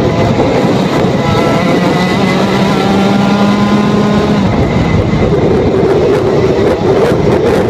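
Rotax two-stroke kart engine at full throttle, its pitch climbing steadily as the kart accelerates down a straight, then breaking off about four and a half seconds in as the driver lifts off for the next corner.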